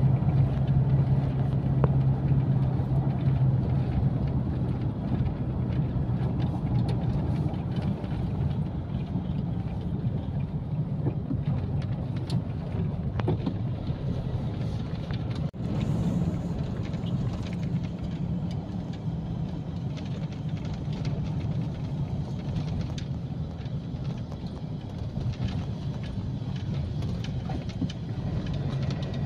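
Engine and road noise inside a moving car's cabin: a steady low hum with tyre rumble.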